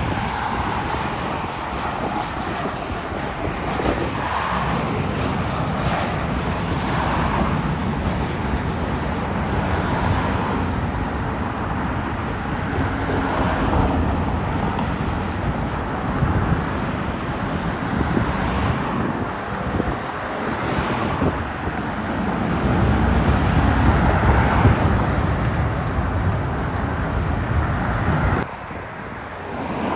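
Road traffic, cars passing one after another in a steady rush, loudest a little past the middle and dropping off suddenly shortly before the end.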